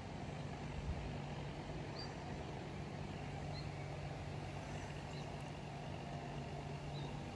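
Quiet outdoor ambience beside a pond: a steady low hum under a faint even hiss, with a short faint high chirp about every one and a half seconds.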